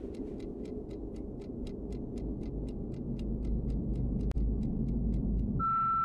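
Fast, even ticking, about four ticks a second, over a steady low rumble. The ticking stops with a sharp click about four seconds in, and a steady high beep starts near the end.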